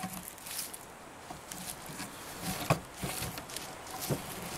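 Footsteps moving through dry leaf litter, with a few soft knocks from the camera being handled.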